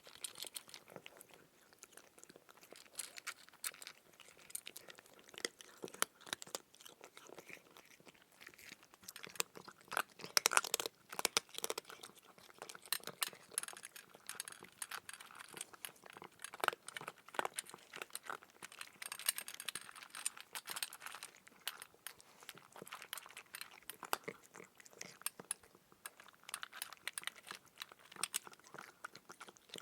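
Cat eating, close up: a dense, irregular run of small chewing clicks with no steady rhythm.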